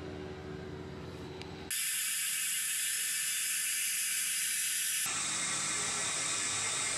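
Car engine and road noise heard from inside the cabin, cut off abruptly a little under two seconds in. A steady high hiss follows and changes abruptly about five seconds in.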